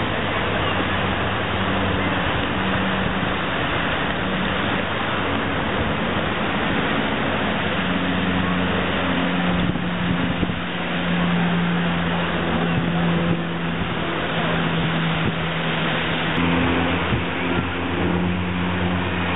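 Canadair amphibious water bomber flying over, its engines and propellers giving a steady drone of low tones that strengthen and shift in pitch as it passes, under a constant rushing hiss.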